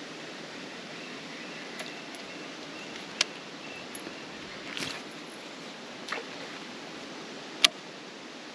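Steady rush of wind on the microphone, broken by a few sharp clicks: two loud ones about three seconds in and near the end, with a couple of softer knocks between them.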